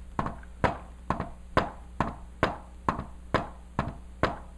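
Hand taps imitating an S4 gallop heart rhythm. Each cycle is a quick double knock (S4 just before S1) followed by a single knock (S2), repeating a little faster than once a second.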